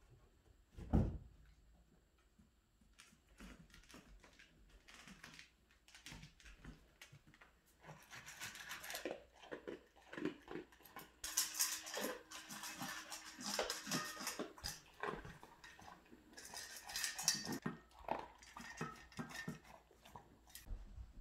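A Basenji–Lab mix dog eating from a stainless steel bowl: irregular chewing and the bowl clinking and scraping, busiest through the middle. A single loud thump about a second in.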